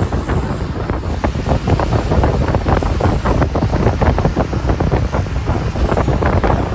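Wind buffeting the microphone of a camera carried in a moving vehicle: a loud, dense rumbling rush with rapid, uneven gusty flutter throughout.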